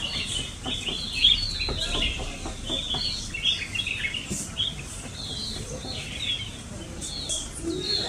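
Several small songbirds chirping and calling over one another in a continuous stream of short, quick, down-slurred chirps.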